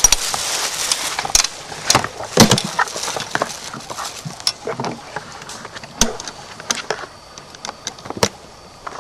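Rustling and crackling handling noise as someone crouches and works at things on the ground, with scattered sharp clicks. The rustle is loudest in the first second, with a loud click about two and a half seconds in, and it dies down near the end.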